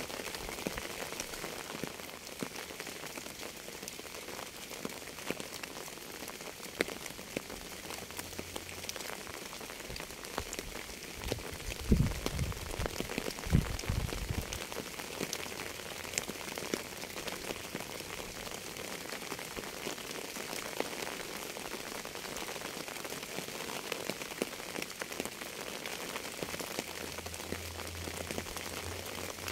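Steady rain falling on a surface: an even hiss dotted with many separate drop ticks. About halfway through, a brief low rumble swells twice in quick succession.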